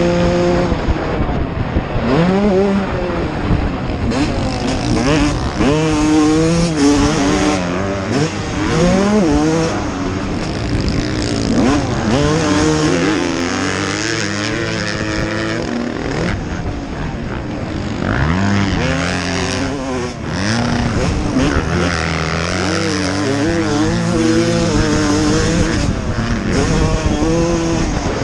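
Motocross dirt bike engines running hard, their pitch repeatedly climbing as the throttle is opened and dropping off between gears and corners.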